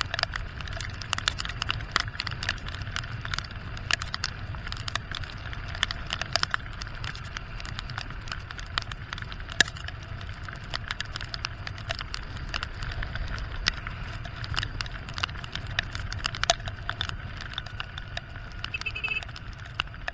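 Raindrops ticking irregularly on the camera over the steady low rumble of a Honda XR150 motorcycle riding along a wet road.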